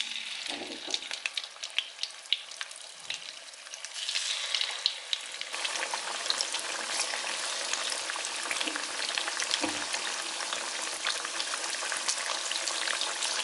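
Marinated chicken pieces frying in hot oil in a wide metal kadai: a steady sizzle full of small crackles and spits. The sizzle grows louder about four seconds in and again a little later as more pieces go into the oil.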